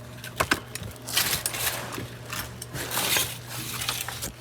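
Light metallic clinks and clatter of tools and exhaust parts being handled, with a few sharp clicks about half a second in and a steady low hum underneath.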